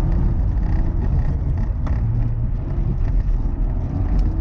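Rally car engine running hard, heard from inside the car, over heavy rumble from the tyres and the snowy gravel road. The engine pitch shifts up and down with gear changes and rises again as the car accelerates near the end, with a few brief knocks from the road.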